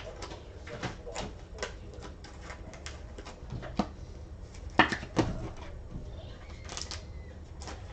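Hands handling Prizm NFL trading card packs and cards: scattered small clicks, taps and rustles, with two louder knocks about five seconds in.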